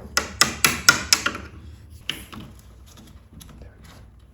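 Quick series of hammer blows on wood, about six sharp knocks in the first second and a half, then a few lighter taps, as the wood is worked to set a plywood patch into a door.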